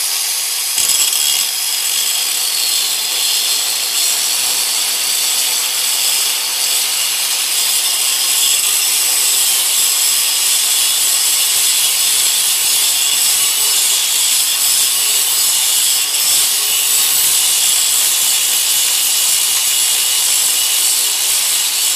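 Electric angle grinder with an abrasive cutoff wheel cutting into the steel of a U-joint held in a vise. It runs continuously as a loud, steady grinding noise with a high whine.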